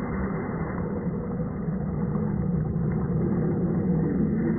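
Brushed 550-size 27-turn electric motor and axle gears of a 1/10-scale RC KamAZ truck running steadily under load as the truck pushes through deep swamp water, with water sloshing around it; the sound grows a little louder toward the end.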